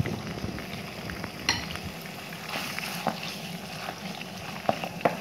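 Liver pieces sizzling in hot olive oil in a frying pan, with scattered crackles and pops as the pieces are turned over.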